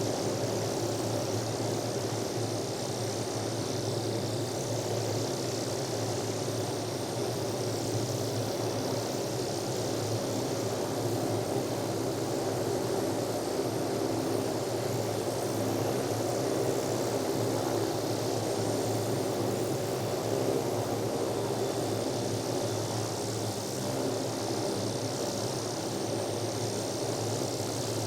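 Helicopter engine and rotor running steadily, a continuous drone with several steady tones and a hiss above it, holding level throughout.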